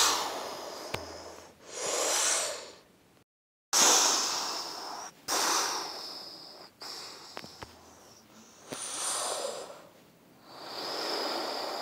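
Rocket blast-off and flight sound made by mouth: a series of breathy, hissing whooshes, about six swells of a second or so each, with a short dead gap about a third of the way in.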